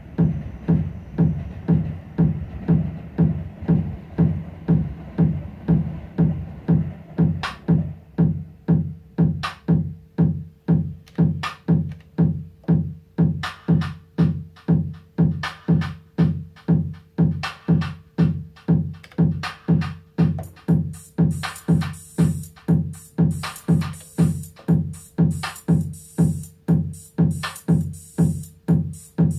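Elektron Analog Rytm MK2 analog drum machine playing a steady four-on-the-floor kick drum at about two beats a second. Sharp high hits join about eight seconds in, with a held mid-pitched tone soon after, and a busier high cymbal pattern fills in from about twenty seconds.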